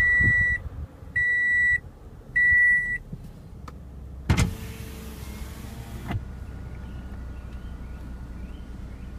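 The car's dashboard chime beeps three times about a second apart. Then the 2015 Toyota Camry XSE's 3.5-litre V6 starts a little past four seconds in with a sudden loud burst. It settles to a steady idle at around six seconds.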